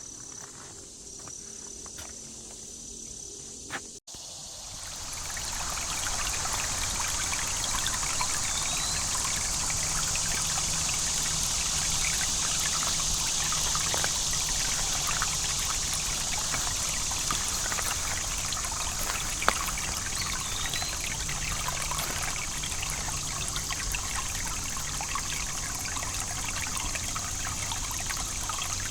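A small creek flowing and trickling over stones, a steady babble of water that comes in about four seconds in. Before it, insects sound faintly with a steady high tone.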